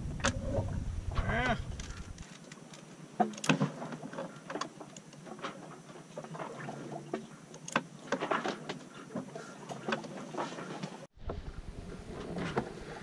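Plastic Rubik's cube clicking and clacking as its layers are turned by hand, in short irregular bursts. A brief voice sound is heard about a second and a half in.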